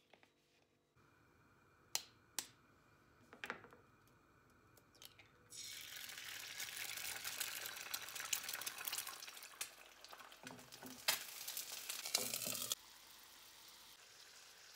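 Eggs frying in hot oil in a skillet: a few sharp clicks and taps first, then from about five seconds in a loud crackling sizzle, which drops suddenly to a quieter steady hiss near the end.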